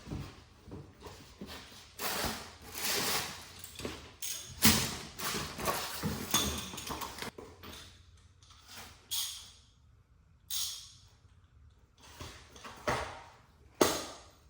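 Irregular knocks, clatter and short scraping sounds of tools and parts being handled while working on a car's wheel, with a sharp knock near the end.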